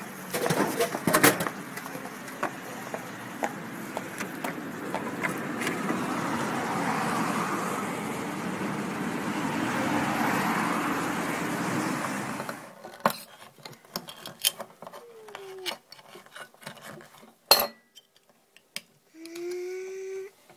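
A drinks vending machine dispensing a can: a button press, then the steel can clattering down into the tray, followed by a long stretch of steady noise. Later a can opener clicks and cuts around the top of the can, with one sharp metallic snap near the end.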